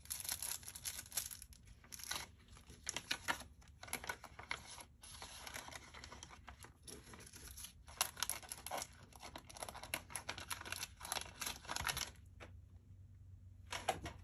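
Clear plastic accessory bags crinkling and rustling as they are handled, in quick irregular crackles. The handling goes quiet about two seconds before the end, with one last brief rustle near the end.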